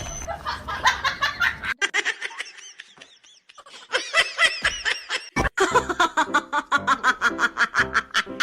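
High-pitched laughter, quieter at first, then a rapid run of laughing bursts about four or five a second through the second half.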